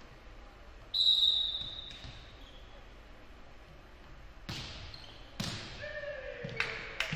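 A referee's whistle blast about a second in, followed by a volleyball serve hit about four and a half seconds in and several more sharp ball contacts, each echoing around the gymnasium.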